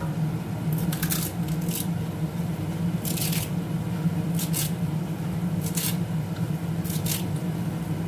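Leafy wild greens being gathered and torn by hand: a string of short rustling, snapping and tearing sounds at irregular intervals, over a steady low hum.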